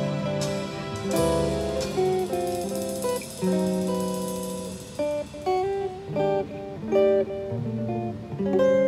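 Solo archtop jazz guitar playing a slow ballad: chords and melody notes struck every second or so and left to ring and fade.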